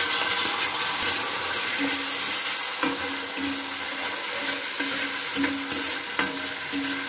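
Sauce and chopped onion, garlic and green chilli sizzling in hot oil in a wok while a metal spatula stirs and scrapes through them, with a few sharp clicks of the spatula against the pan.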